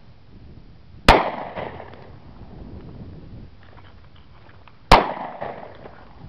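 Two shots from a Glock pistol in .40 S&W, nearly four seconds apart, each a sharp crack that dies away with a short echo.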